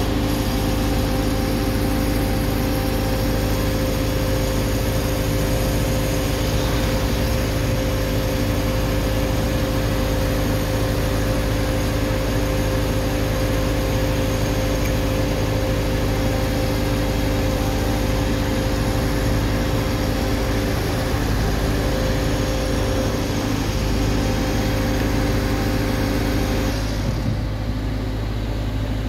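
Heavy construction machinery's diesel engine running steadily at idle, a constant low hum with a steady drone above it. Near the end the hiss on top drops away while the low hum carries on.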